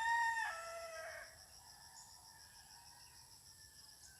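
A rooster crowing once: a loud held call that drops in pitch and dies away a little over a second in, followed by a faint steady chirring of insects.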